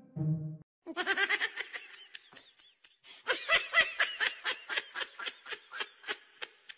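A person giggling in rapid, high-pitched bursts of about five a second, with a short lull a couple of seconds in.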